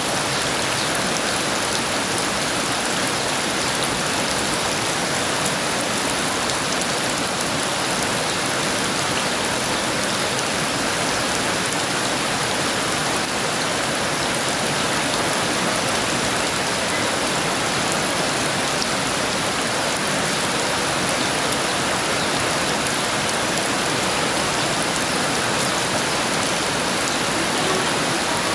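Heavy rain pouring down steadily, a dense, even hiss with no break.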